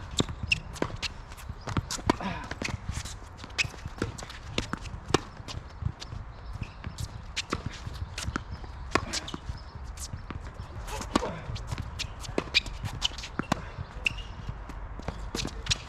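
Tennis being played: irregular sharp knocks of racquet strikes, ball bounces and footsteps, several a second, over a low steady rumble.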